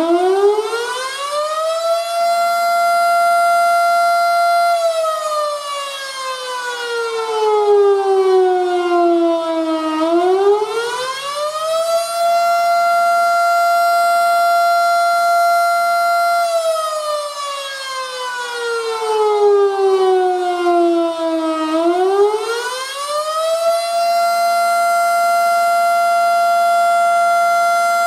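Federal Model 5 outdoor warning siren sounding the attack signal. Its wailing tone climbs to full pitch, holds there for a few seconds, slides slowly down, then winds back up, repeating about every 11 to 12 seconds.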